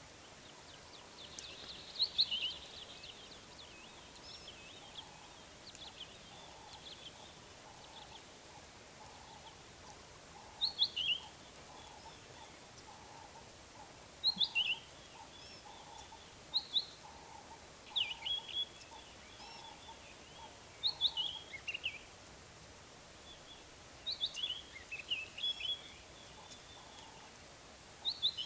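Wild birds calling: short, high chirping phrases of quick rising and falling notes, repeated every few seconds. Under them a fainter, lower note repeats steadily and stops about two-thirds of the way through.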